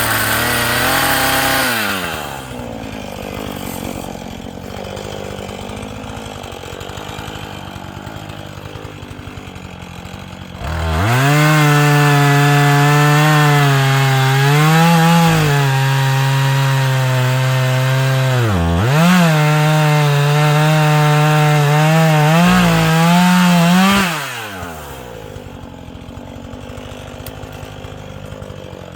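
Chainsaw at high revs, dropping to idle for about eight seconds, then run at full throttle for about thirteen seconds cutting wood, its pitch dipping briefly a few times, before dropping back to idle.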